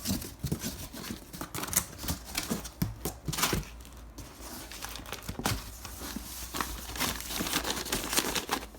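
Firework cakes being handled and shifted around, with crinkling of their wrapping and a run of small knocks and clicks.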